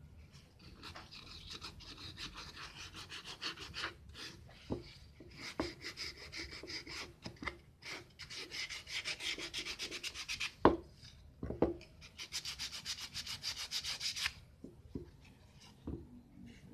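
Hand sanding of a wooden plywood casting pattern against sandpaper: quick back-and-forth scratchy strokes in several spells of a few seconds each. A couple of sharp knocks come past the middle, the first of them the loudest sound.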